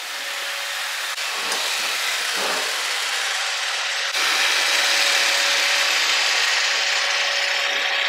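iRobot Roomba 694 robot vacuum running over a rough concrete floor: a steady whirring hiss from its motor and brushes, with a faint steady hum, getting louder about four seconds in.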